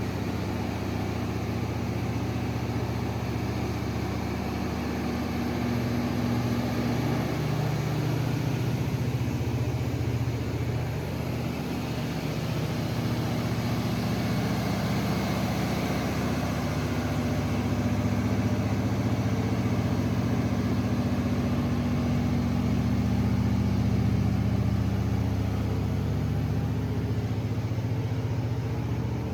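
Kohler 1020 kW diesel generator set with a DDC/MTU engine running steadily.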